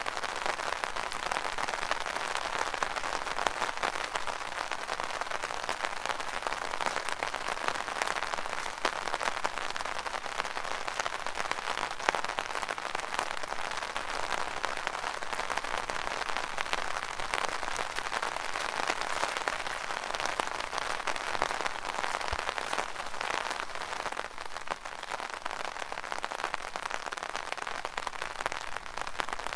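Rain pattering steadily on an umbrella canopy, a dense crackle of countless drops hitting the taut fabric.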